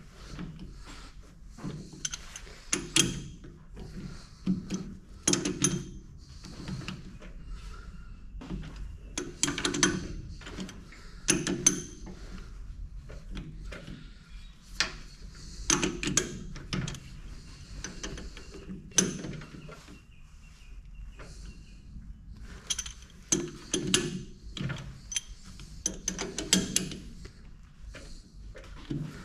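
Chuck key working the jaw screws of a four-jaw independent lathe chuck: scattered metallic clicks, knocks and clunks as the jaws are adjusted one by one and the chuck is turned by hand to centre a square steel bar.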